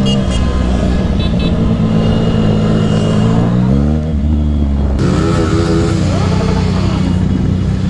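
Motorcycle engines running, with rises and falls in revs. The sound changes abruptly about five seconds in.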